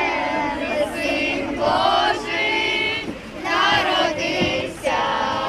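A group of children singing a Ukrainian Christmas carol (koliadka) together in long sung phrases, with a brief pause for breath about three seconds in.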